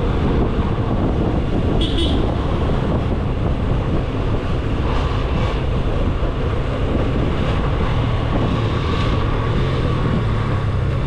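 Motorcycle engine running on the move, mixed with a steady wind rumble on the microphone as the bike slows; the engine note comes through more clearly about eight seconds in.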